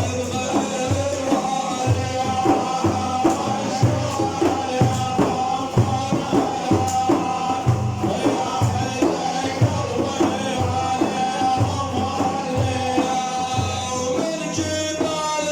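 Instrumental passage of an Arabic folk song: a steady drum beat under a held melody line.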